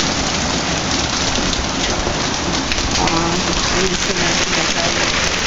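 Hailstorm with heavy rain, a dense steady hiss of stones and drops hitting the ground and surfaces, with golf-ball-sized hailstones coming down.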